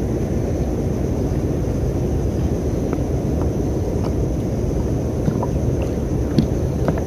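Wind buffeting the microphone on open water: a steady low rumble, with a few faint small clicks.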